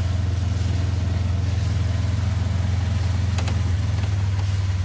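A small engine running steadily with a low hum, its pitch shifting slightly near the end. There is a brief click about three and a half seconds in.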